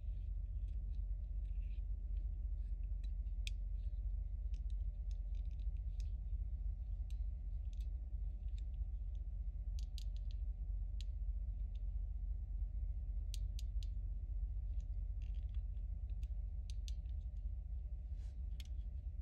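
Irregular small clicks and ticks of hard plastic toy parts being handled and worked apart, over a steady low hum.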